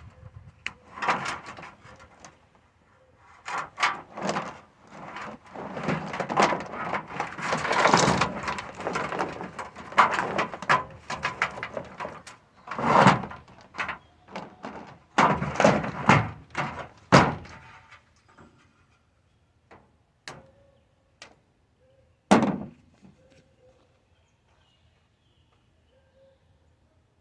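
Irregular knocking, clattering and scraping of things being handled, dense for most of the stretch, then a few sparse clicks and one heavy thump later on.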